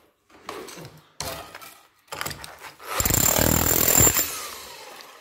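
Battery-powered saw hacking into brick and mortar: three short bursts, then a longer, louder run of about a second, after which the motor winds down with a falling pitch.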